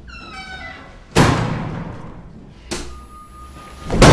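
Heavy clunks of overhead lights switching on in a small interrogation room: a loud one about a second in and a smaller one near three seconds, followed by a faint steady hum. Right at the end comes a loud slam as a head is smashed down onto a table.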